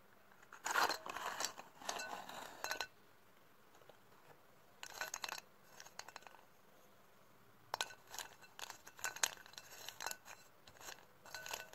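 Sticks of chalk tipped out of their box into a clay pot, clattering and clinking against the pot and each other in three bursts of sharp knocks with a light ringing.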